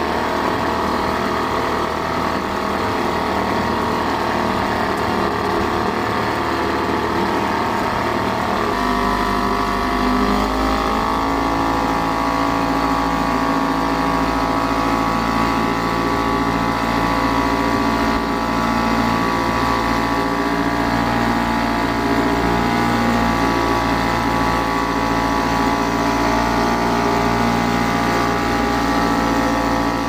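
Antique British Seagull two-stroke outboard motor running steadily. Its pitch rises around nine to eleven seconds in, then holds at the higher note.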